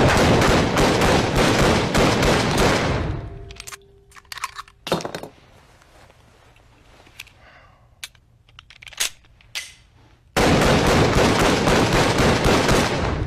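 Rapid gunfire from a handgun in two long bursts of about three seconds each, the first at the start and the second about ten seconds in, with a few single sharp cracks in the quieter stretch between.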